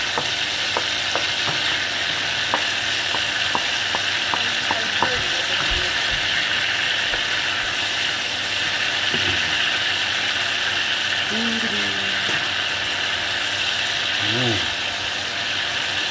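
Eggs frying in a pan of bubbling butter: a steady sizzle, with a run of sharp pops and clicks over the first five seconds or so.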